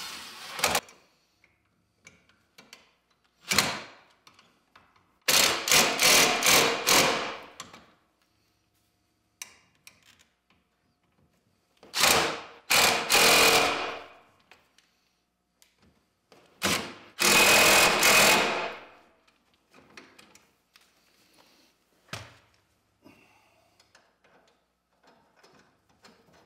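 Cordless impact wrench run in a series of rattling bursts, the longest two to three seconds, with pauses between, driving down the top nut on the threaded rod of a snowmobile's pogo-stick front suspension strut to load the new spring.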